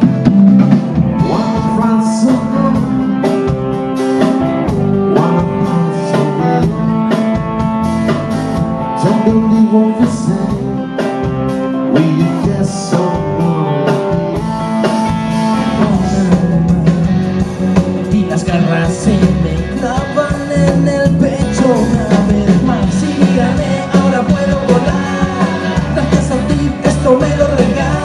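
Live rock band playing: electric guitars, bass guitar and drums, with a man singing into the microphone.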